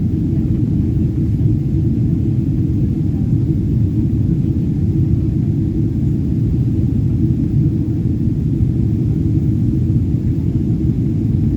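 Jet airliner's steady low rumble, an even drone that doesn't change.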